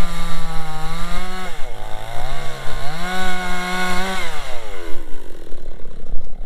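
Two-stroke chainsaw running at high revs while cutting firewood logs. Its pitch dips for about a second, climbs back, then falls away about five seconds in as the engine comes off throttle.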